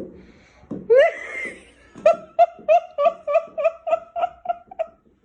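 A high-pitched voice: one rising call, then a laugh-like run of about ten short, evenly spaced calls on the same pitch, about three a second.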